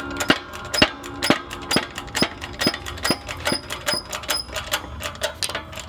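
Shop press forcing the worn 6203 sealed bearings out of a belt tensioner pulley: a steady run of sharp metallic clicks, about two a second with fainter ones between, some ringing briefly.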